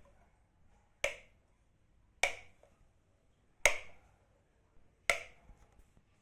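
A switch clicked on four times, one sharp click every second and a half or so, each with a brief ring.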